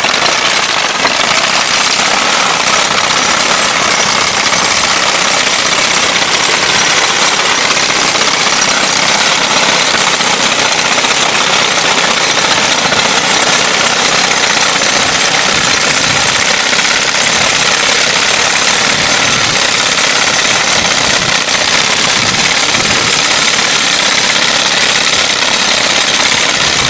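Horse-drawn reaper cutting standing wheat. Its ground-wheel-driven sickle-bar knife and gearing chatter loudly and steadily throughout.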